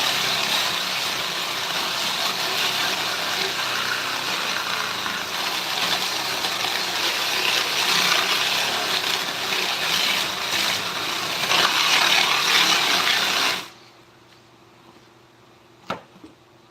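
Handheld power tool running steadily on wood with a hissing, grinding noise, then switched off about fourteen seconds in; a single click follows.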